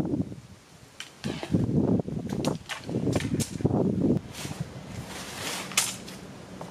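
Aluminium tent poles clacking against each other and the stone paving as they are handled, a string of sharp clicks with some rustling of the tent's polyester fabric.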